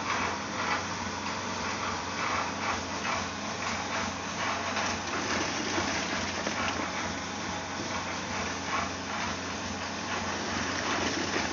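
Wet concrete being poured from a pail into a steel column form around the rebar, over a steady engine hum.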